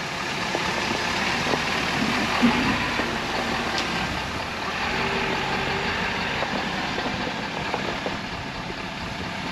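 Pickup truck running slowly with a steady engine and mechanical noise while feeding cattle.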